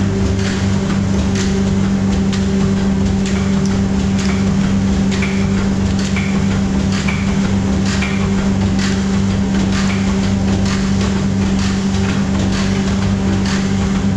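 Meat brine injector running: a steady motor and pump hum with regular mechanical clacks, about once or twice a second, as the needle head strokes into the meat on the stepping conveyor.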